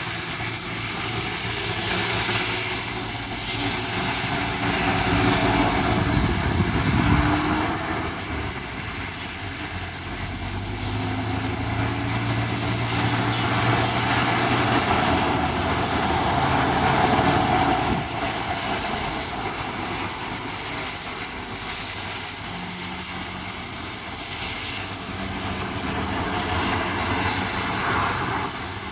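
Steady noise of wind and rain, with motor vehicles passing; their engine hum swells and fades several times, loudest about six seconds in and again around fifteen seconds in.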